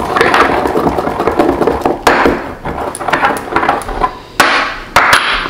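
Cardamom pods being crushed in a small mortar and pestle: a series of knocks and gritty grinding strokes, about one a second, as the pods are worked toward a powder.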